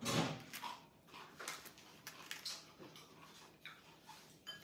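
Light rustling and crackling of fresh cilantro and a crusty French baguette being handled as the sandwich is filled. There is a short vocal sound at the start and a brief high squeak near the end.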